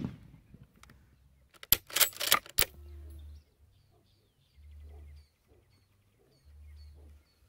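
Bolt of a Finnish Mosin-Nagant rifle worked between shots, heard as a quick run of four sharp metallic clicks about two seconds in as the spent case is cleared and the action closed. Faint bird chirps sound in the background.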